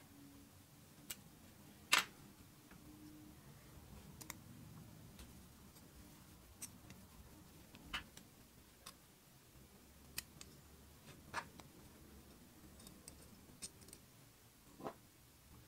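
Sparse, sharp metallic clicks of small revolver lock parts (hammer, trigger and springs) being handled and fitted into the steel frame, about ten in all, the loudest about two seconds in.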